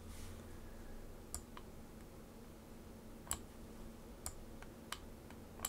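About six sharp clicks of a computer mouse, irregularly spaced, over a faint steady low hum.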